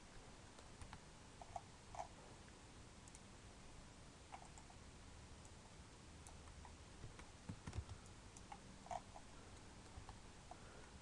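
Near silence with faint, scattered clicks from a computer mouse and keyboard, a few at a time, irregularly spaced.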